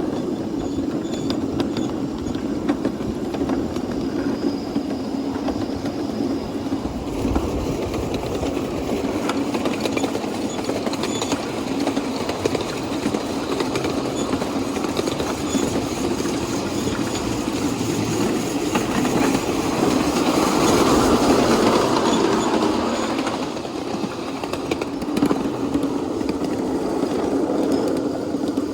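7¼-inch gauge miniature live steam train running along the track, a steady running noise that grows louder about twenty seconds in and then drops back.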